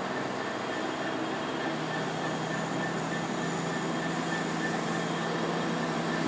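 Diesel multiple unit running slowly into the platform: a steady engine hum with a fixed higher whine and no sudden sounds.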